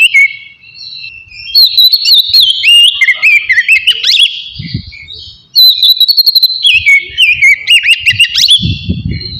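Oriental magpie-robin (kacer) singing loud, varied whistled song: quick rising and falling whistles and chirps in two long phrases, the second starting just after the middle. Dull low knocks come about halfway through and again near the end.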